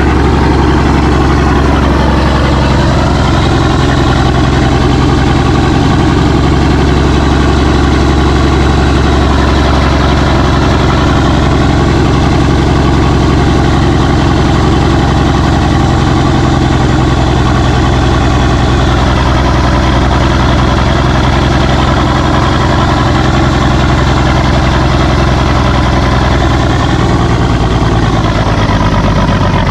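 Cummins 855 inline-six diesel engine running steadily at a loud, even speed. Its note wavers slightly and sags a little near the end.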